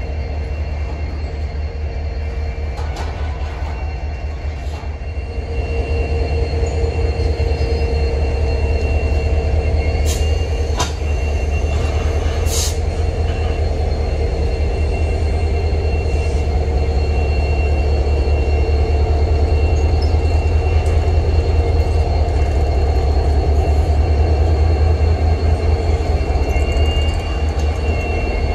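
Freight trains passing close by: a double-stack container train's wheels rumbling over the rails, joined by Norfolk Southern diesel locomotives rolling in on the near track. A steady heavy rumble grows louder about five seconds in, with a faint, steady high-pitched squeal from the wheels above it.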